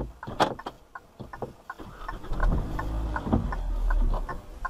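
A string of short, irregular clicks and light knocks over a low idling engine rumble inside a stopped car.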